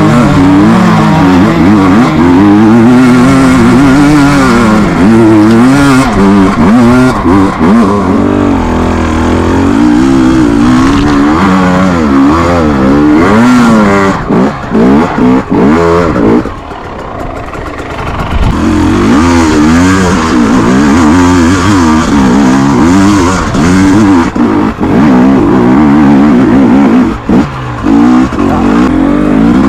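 KTM EXC 250 TPI single-cylinder two-stroke engine being ridden off-road, its revs rising and falling without pause as the throttle is worked. About sixteen seconds in, the throttle closes and the engine drops to a lower, quieter note for a couple of seconds, then picks up and revs on again.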